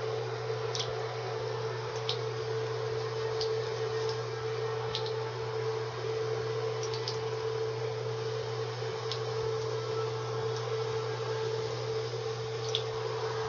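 Water running steadily from a tap for a cockatiel's bath, with a constant hum under it and a few faint, short high ticks.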